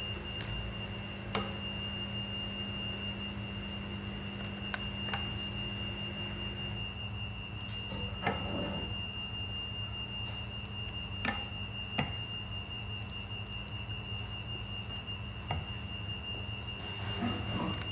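Serving utensil clicking and knocking now and then while cooked vegetables and meat are scooped into a large bowl, over a steady hum with a constant high whine.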